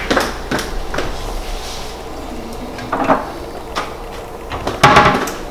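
Kitchen cupboard door opening and closing, with scattered knocks and clicks as a jar of honey is taken out; the louder knocks come about three seconds in and near the end.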